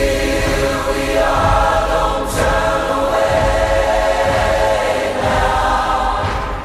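Soundtrack music: a choir singing long held chords.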